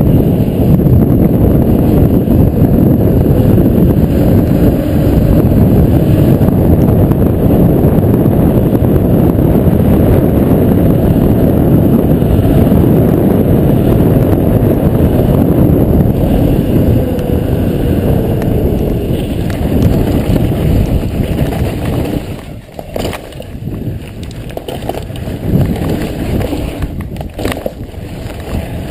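Mountain bike speeding downhill on pavement: loud rushing wind noise on the camera microphone over the hum of the tyres on the asphalt. About 22 seconds in, as the bike slows onto dirt trail, it grows quieter and a few sharp clicks and knocks of the bike over the rough ground come through.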